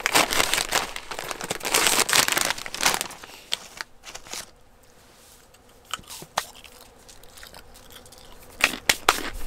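Foil snack bag crinkling loudly as it is torn open by hand for about the first three seconds, followed by a quieter stretch with a few sharp, scattered crackles.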